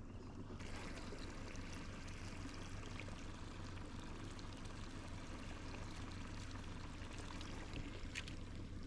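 Water rushing and splashing steadily along a small boat's hull, starting about half a second in, over a steady low hum.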